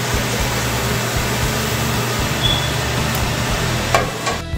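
Steady sizzling of a tortilla heating in hot oil in a skillet, over a low steady hum. About four seconds in there is a sharp knock as a plate is moved, and music starts right at the end.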